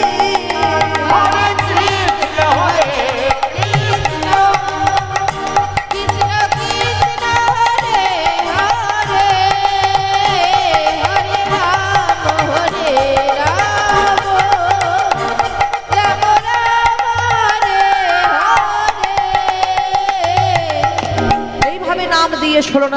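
Devotional kirtan music: a melody with some singing over a held tone, and a hand drum beating a steady rhythm.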